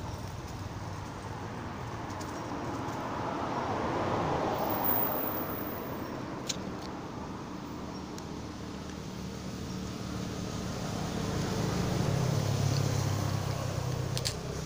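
Outdoor rumble like passing road traffic, swelling twice, about four and twelve seconds in, with a single sharp click in between.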